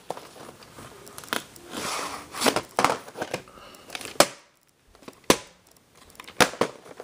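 A VHS tape and its case handled close to the microphone: scattered sharp clicks and knocks, with stretches of rustling and crinkling about two to three seconds in and a brief hush just after the middle.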